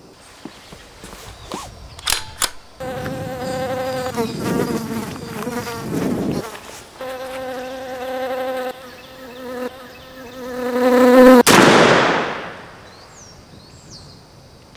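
Steady wasp buzzing with a short break partway through, ended about eleven seconds in by a single sudden loud blast that dies away over a second or so.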